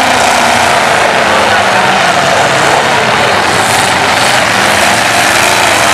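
Several demolition derby cars' engines revving hard together in a loud, steady roar while the cars push against one another.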